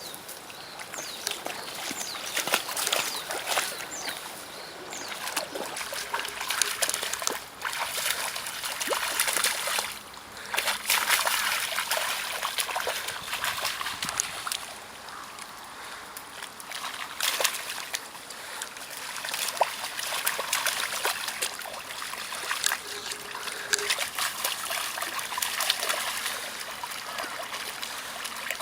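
Shallow river water splashing and trickling, with many short splashes coming in uneven bursts.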